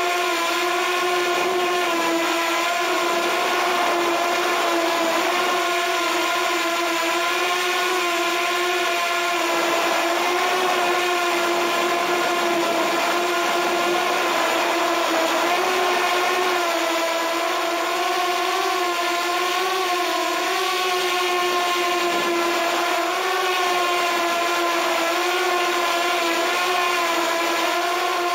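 Walkera F210 3D racing quadcopter's brushless motors and propellers whining steadily in flight, heard from on board the frame. The pitch wavers up and down a little as the throttle changes.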